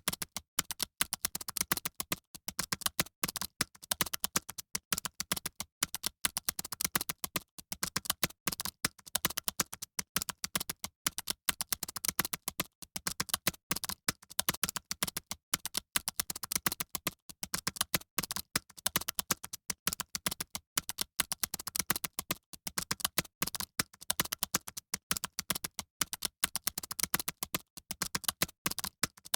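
Fast keyboard typing: a dense, continuous run of sharp key clicks, several a second, keys struck without pause.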